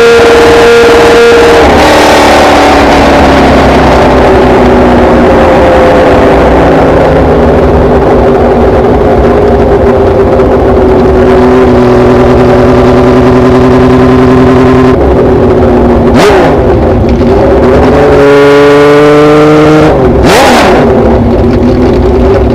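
Classic Japanese multi-cylinder motorcycle engine running loud. Its pitch falls slowly over several seconds, then holds steady. Two brief sharp sweeps come in the second half, with a short higher-pitched stretch between them.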